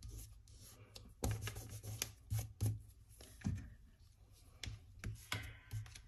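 Fingers pressing and smoothing a glued paper cutout onto a sheet of paper: soft, irregular taps and rubs of paper against paper and the table.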